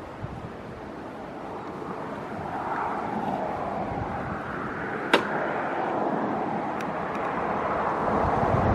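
A Hyundai car approaching and passing close, its tyre and engine noise growing steadily louder, with one sharp click about five seconds in.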